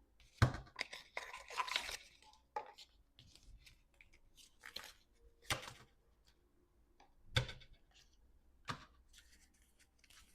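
A tarot deck being shuffled by hand: a flurry of card rustles, then a few sharp single slaps and flicks of cards.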